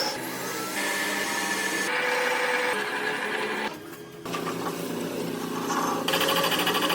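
Workshop machinery running in a series of short clips that change abruptly every second or so, each with a steady mechanical hum and whine.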